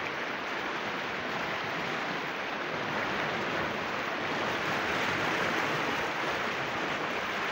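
Fast floodwater of a swollen river rushing and churning in a steady, even rush of water that grows slightly louder partway through.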